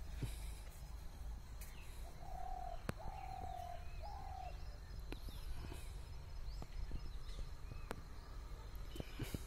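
A dove cooing three low notes in a row, the middle one the longest, about two seconds in. Faint chirps of small birds and a few sharp clicks are heard over a steady low rumble.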